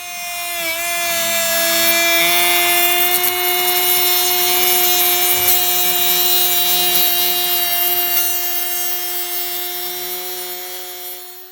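Electric woodworking router running at high speed with its bit cutting wood: a steady high whine over a dense cutting noise. The pitch sags briefly under load about a second in, and the sound fades in and out.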